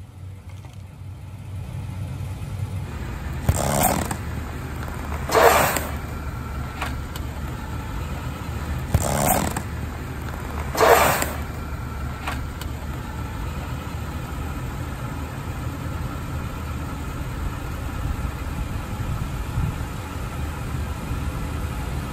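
Car engine running low and steady as the tyre rolls slowly over an aerosol can of shaving foam. Four short bursts of noise break in, about 4, 5.5, 9 and 11 seconds in, as the pressurised can is crushed and foam spurts out.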